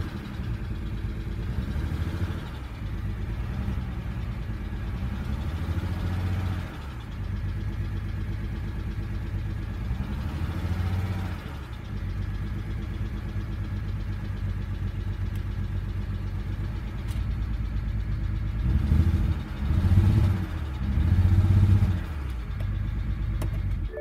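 BMW N54 twin-turbo straight-six engine idling steadily, its level swelling a few times near the end. It is being run to check a suspected cylinder 6 misfire (code P0306).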